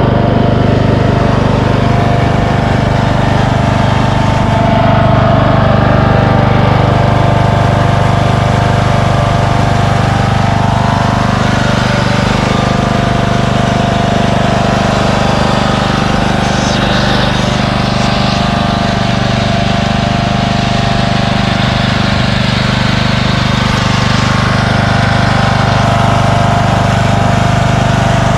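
Craftsman 20 hp lawn tractor engine running steadily at full throttle as the tractor drives along, with no hesitation.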